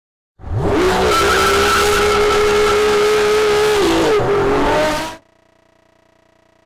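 A sports car engine revving up sharply and held at high revs for about four seconds, with a screeching tyre-squeal hiss over it. The pitch dips briefly near the end before the sound cuts off suddenly.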